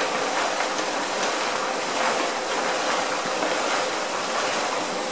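Homemade rotary tumbler running: stainless steel pins and .223 brass cases churning in soapy water inside a turning plastic barrel, a steady rattling hiss, as the brass is wet-cleaned.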